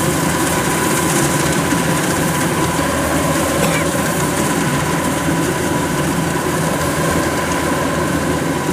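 Kubota DC93 combine harvester running steadily while it cuts lodged rice, its diesel engine and machinery making a constant drone with a steady high note over it.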